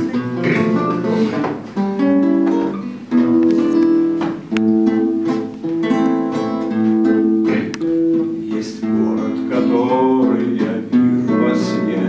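Acoustic guitar strummed in chords, playing the opening of a song.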